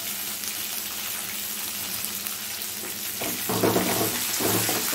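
Chopped onion just added to hot oil in an aluminium kadai, sizzling with a steady loud hiss. From about three seconds in, a slotted metal spoon stirs and scrapes through it.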